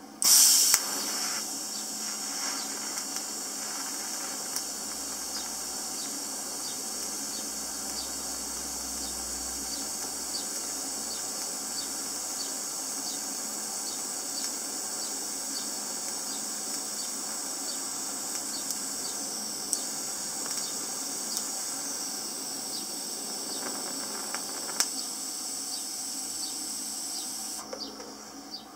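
TIG welding arc on mild steel: a steady high hiss with faint crackles. It is struck with a brief louder burst just after the start and cuts off near the end.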